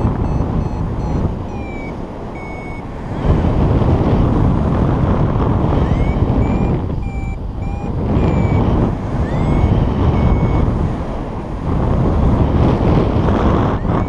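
Wind rushing hard over the microphone in flight, surging and easing every few seconds. Over it come a paragliding variometer's short electronic beeps and a few rising chirps, the tone a vario gives while the glider is climbing.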